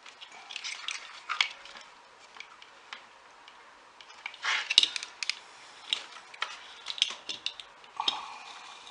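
Multimeter test probes and a BNC adapter being handled: irregular small metal clicks, taps and short scrapes as the probe tips are touched and rubbed against metal contacts, in a few clusters.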